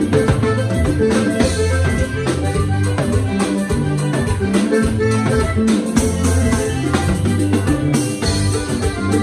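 Live Panamanian típico music in an instrumental passage: a Hohner button accordion plays the melody over bass and drums keeping a steady beat.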